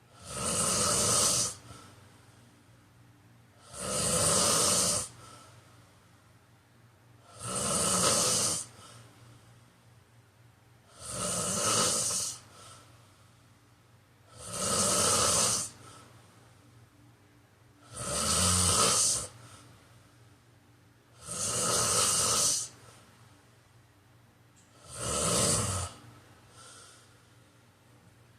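A man snoring rhythmically in his sleep: eight snores, each about a second and a half long, coming about every three and a half seconds with quiet breathing gaps between.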